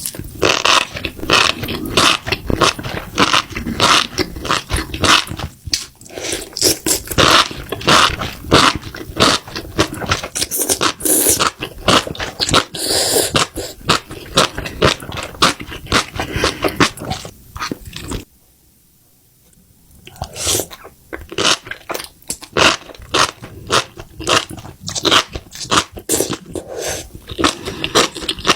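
A dog vocalizing in quick, irregular grumbling bursts, with a pause of about two seconds a little past the middle.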